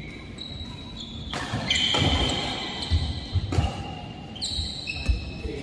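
Badminton rally in an indoor hall: sharp racket strikes on the shuttlecock roughly once a second, with short high squeaks of court shoes on the floor.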